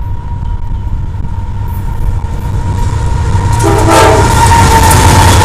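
Diesel freight locomotives running past close by, their rumble growing louder as they arrive, with a short horn sounding just before they draw level.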